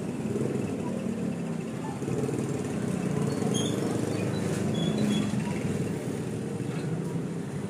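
A motor vehicle's engine running steadily, a low, even pulsing.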